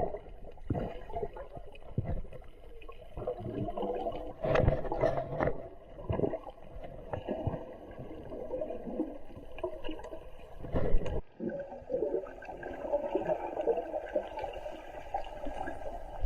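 Water sloshing and splashing around a boat, with irregular low thumps and bumps, the heaviest about four to six seconds in and again around ten to eleven seconds, followed by a brief break.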